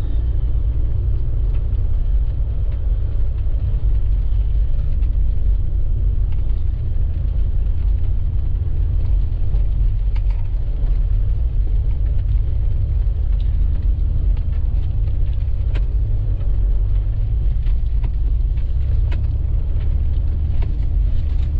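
Steady low rumble of a 4x4 truck driving along a deep, packed-snow trail: engine and tyres running on snow.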